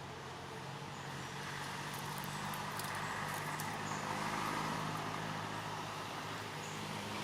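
A motor vehicle's engine running as it passes, with a steady low hum and a swell of road noise that grows louder to a peak about four seconds in, then eases off.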